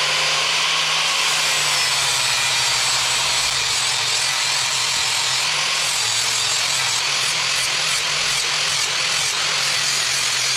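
A power grinder running steadily against steel, sharpening a lawn mower blade.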